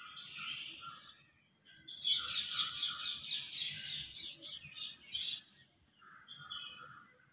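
Small birds chirping: a fast, twittering run of notes about two seconds in that goes on for a few seconds, with shorter bursts of chirps before and near the end.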